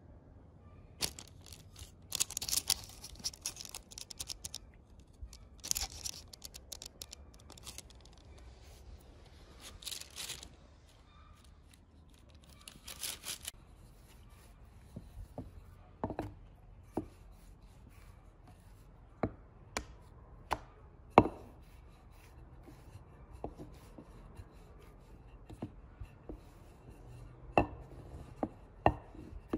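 Baking paper crackling in rustling bursts as dough pieces are laid on the lined tray. Then a wooden rolling pin rolls dough flat on a board, with sharp knocks and clicks as it is pressed and moved.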